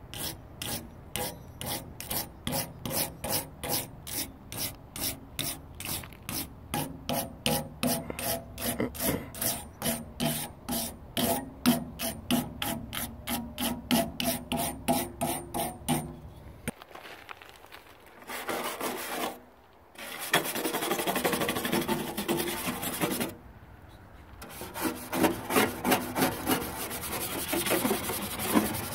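Wire brush scrubbing chemically softened, bubbled-up paint on a steel go-kart frame in quick back-and-forth strokes, about three a second. Past the halfway point the strokes give way to a denser, steadier scraping of the loosened paint off a flat steel panel, broken by two short pauses.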